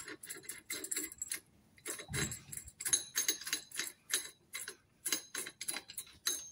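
Light metallic clicks and clinks, a few a second with a short pause about a second and a half in, as the long threaded bar and steel pieces of a bush press tool set are fed through and fitted together.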